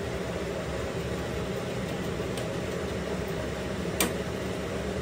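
Steady rushing hum from a gas stove with tea boiling and food frying in a wok. About four seconds in, a single metal clink as the wire-mesh strainer ladle knocks against the wok.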